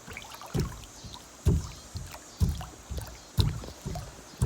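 Footsteps on the floor of an empty swimming pool, each step a low hollow thud, about one a second. The hollow sound is the sign of a void under the pool floor, which the owner believes lies under this whole area of the shallow end.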